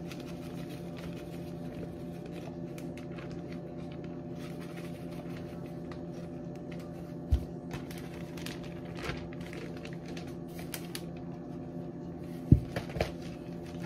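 A steady hum with several pitched lines, under faint rustling and tapping as a dry coating is poured from a cardboard canister into a plastic zip-top bag. There are two sharp knocks, one about seven seconds in and one near the end.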